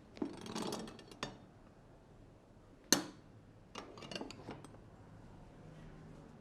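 Barber's hands working a client's head and neck in an Indian head massage. A brief rubbing scuffle with clicks, then one sharp loud snap about three seconds in, and a short run of smaller clicks about a second later.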